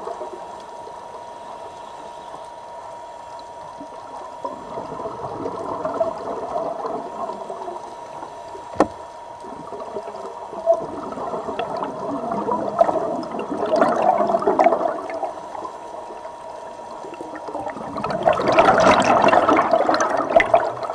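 Underwater ambience with a steady muffled water noise and a faint steady tone. Two sharp clicks come about midway. Bursts of bubbling follow, the loudest near the end as a cloud of air bubbles rises.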